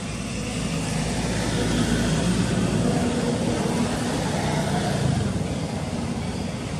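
A motor vehicle's engine running with a steady low hum, swelling over the first couple of seconds and fading a little near the end.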